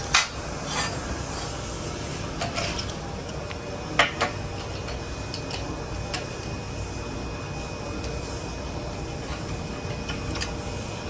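IPG LightWELD XR handheld laser welder running for a weld: a steady mechanical hum with a few sharp clicks, the loudest about four seconds in, and a faint steady high tone from about three and a half seconds in.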